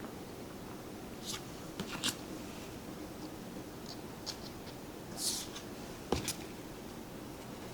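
Tarot cards being handled: a few brief swishes of card stock sliding and light ticks as cards are laid down, with one longer swish about five seconds in.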